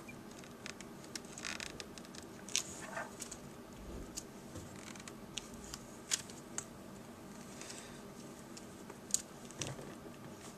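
Faint, scattered small clicks and light scratching of fingers and a screwdriver working a laptop display-cable connector into its socket on the back of an LCD panel.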